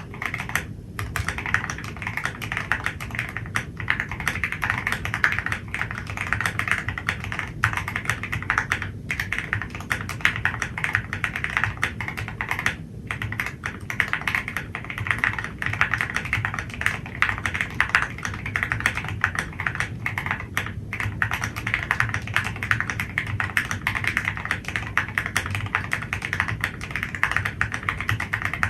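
Fast, continuous typing on a Fuji75 mechanical keyboard with stock Everglide Water King v3 linear switches on a carbon plate with PE foam, giving a dense run of deep, muted keystrokes. The typing pauses briefly about a second in and again around the middle.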